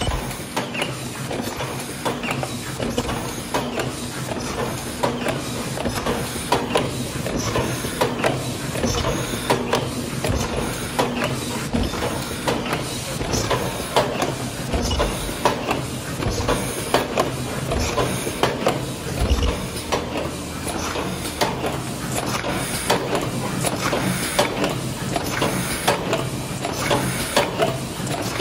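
Paper takeaway box forming machine running at production speed. Its mechanism clacks and knocks rapidly and continuously over a steady machine hum.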